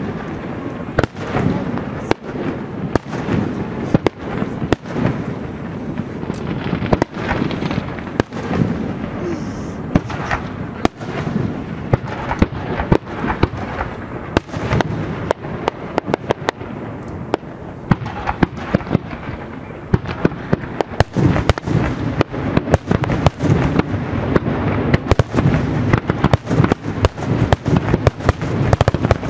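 Aerial fireworks display: shells going off one after another in sharp bangs over a continuous low rumble. The bangs come thicker and faster in the last third.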